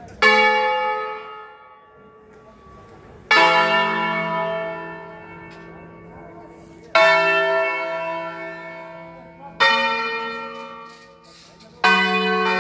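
Church bells in the bell tower ringing: five separate strikes a few seconds apart, each a loud clang followed by a long ringing decay.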